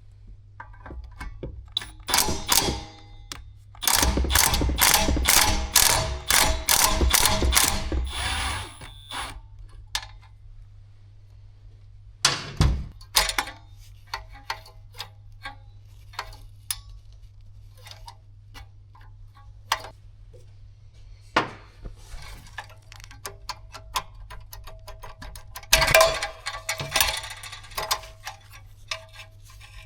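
Hand-tool work on metal: a ratchet wrench clicking in a quick even run of about ten clicks, with scattered knocks and clatter of tools and parts around it.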